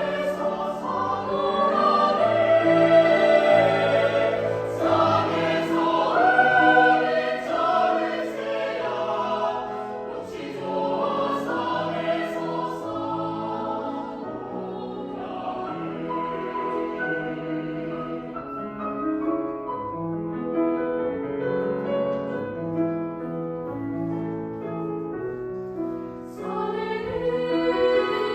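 Choir singing a sustained, classical-style piece, fuller and louder at first, softer through the middle, and swelling again near the end.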